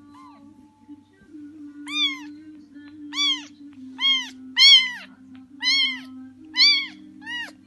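Young kitten meowing repeatedly: about seven short, high meows, each rising and then falling in pitch, starting about two seconds in, after one faint mew near the start.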